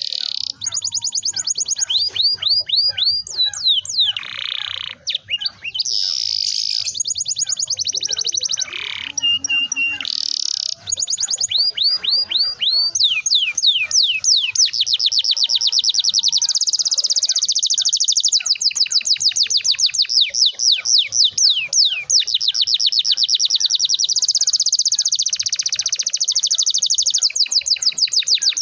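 Domestic canary singing in long rolling trills: fast runs of repeated falling notes, broken in the first half by short held whistles and buzzy phrases, then one unbroken trill through the second half.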